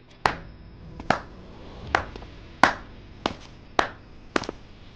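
Slow, unhurried hand clapping: about eight or nine sharp claps, roughly one every two-thirds of a second.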